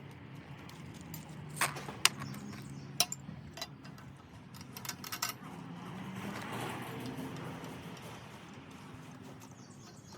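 Metal parts of a hand lawn mower clinking and knocking as they are handled, a handful of sharp clinks in the first half, over a low steady hum.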